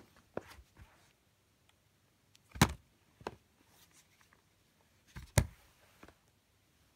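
Plastic DVD cases being handled and set down: a few separate sharp clacks and knocks, with two louder ones about two and a half and five and a half seconds in.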